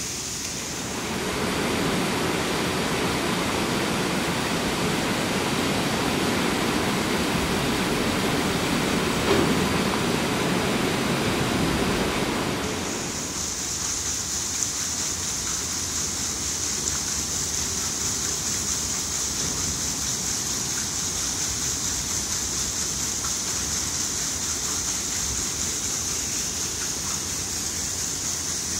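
Water splashing off a large iron waterwheel and running through the stone channel beneath it, a steady rush. About halfway through it turns brighter and more hissing.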